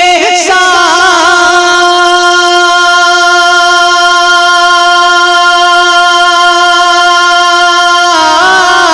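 Naat singer holding one long, drawn-out note without words, with a few wavering turns at first, then moving on to new notes near the end.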